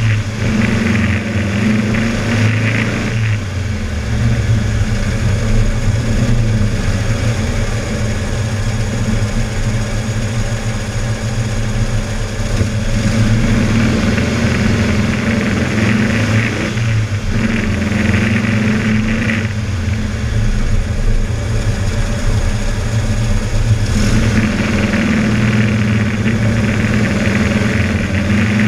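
Air-cooled Volkswagen flat-four engine running while the car is driven, heard close up from inside its engine bay. Its note shifts every few seconds as the engine pulls and eases off.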